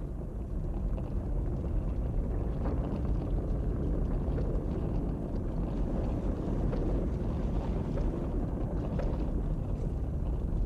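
Lava lake giving off a steady low rumble, with a few faint crackles in the middle.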